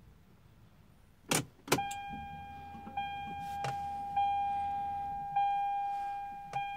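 Two clicks as the ignition of a 1997 Toyota Supra is switched on, then the dashboard warning chime: a steady ringing tone re-struck about every second and a quarter, fading a little between strikes.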